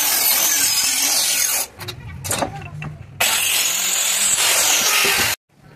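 Small handheld electric circular saw cutting through wood, in two spells of cutting with a quieter lull of about a second and a half between. The sound cuts off suddenly near the end.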